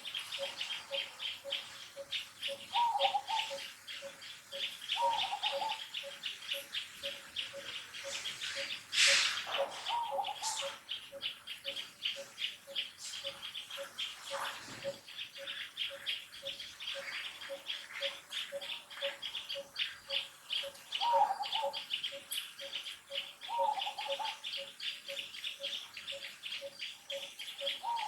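Birds and insects calling together: a low note repeated evenly two or three times a second, rapid high chirping, and several short calls at intervals. About nine seconds in, one brief sharper sound stands out as the loudest moment.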